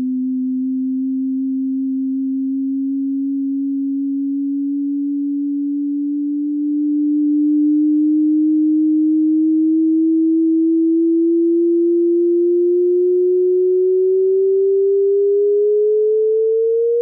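Sonified simulated gravitational waves from two neutron stars spiralling toward a merger: a single pure tone that rises slowly and steadily in pitch, getting a little louder about seven seconds in.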